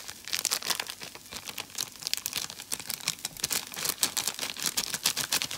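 A small plastic spice packet crinkling in the hand as ground Chinese five-spice powder is shaken out of it: a dense run of quick, sharp crackles.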